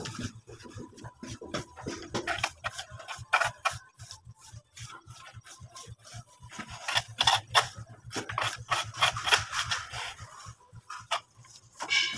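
Steel plastering trowel scraping and smoothing cement render on a wall in irregular strokes, with louder runs of strokes about three seconds in and from about seven to ten seconds.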